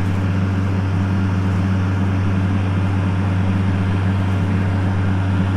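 Tractor engine running steadily while pulling a planter, a loud, even low hum with no change in pitch.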